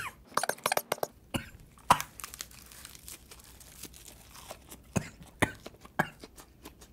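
A person coughing and clearing their throat with a mouthful of food. There is a quick cluster of small mouth clicks and chewing sounds in the first second, then single short coughs or clicks every second or so.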